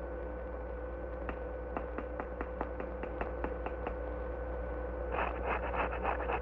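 A run of sharp clicks or taps, sparse and irregular at first, then quickening into a fast patter about five seconds in, over a steady soundtrack hum.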